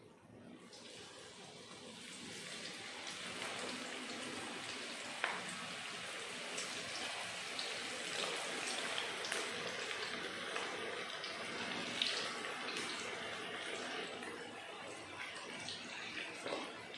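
Potato pakoras (gram-flour fritters) deep-frying in hot oil. The sizzle builds over the first couple of seconds as the batter goes in, then holds steady, with scattered pops and crackles.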